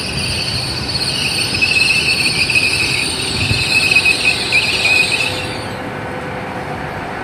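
Great Western Railway Class 800 train moving along the platform, its running gear giving a high, wavering squeal over a low rumble. The squeal dies away about five and a half seconds in, leaving the low rumble.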